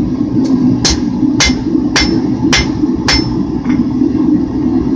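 Blacksmith's hammer striking hot 5160 steel on an anvil, drawing out the taper for a knife tip: about seven blows, roughly two a second, each with a bright metallic ring, the last one lighter. A steady low rumble runs underneath.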